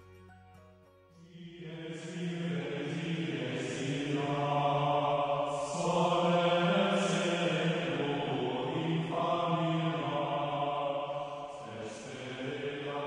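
Interlude music: the tail of a tinkling tune fades out, then about a second in a chanted vocal line begins over a steady low drone, sung in long held phrases.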